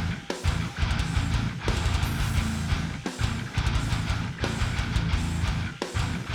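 Background music: guitar-driven rock with a steady beat.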